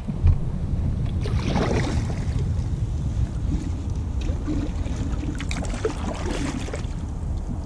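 Kayak paddle blades dipping and splashing in the water in two spells of strokes, over a steady low rumble of wind on the microphone. A single knock sounds just after the start as the paddle is handled.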